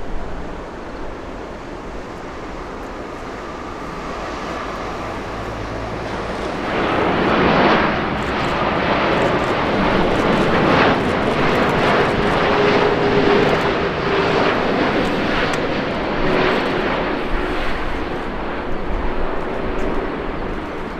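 Jet airliner's engines passing, building over a few seconds to a loud, rough rumble with a crackle in it that holds for about ten seconds before easing off near the end.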